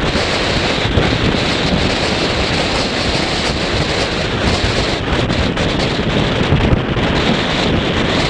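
Strong wind buffeting the microphone: a loud, steady rushing noise with no distinct tones or knocks.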